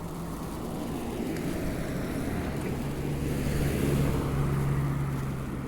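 Street traffic: a low vehicle engine hum that grows louder about three seconds in, over a steady rush of tyres on the road and wind on the microphone.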